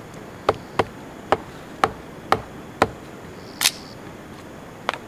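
Fixed-blade bushcraft knife chopping pine firewood: about eight sharp strikes into the wood, roughly half a second apart, with a short pause near the end.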